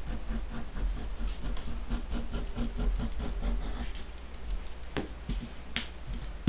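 Hand edge beveler scraping along the top edge of a leather piece held on a glass plate, in a rapid run of short strokes, followed by two sharp clicks near the end.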